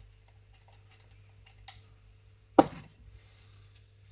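Light ticks and clicks from handling a pump oil can and a new rubber brake caliper dust boot as it is being lubricated. About two and a half seconds in, one short, loud squeak falls in pitch.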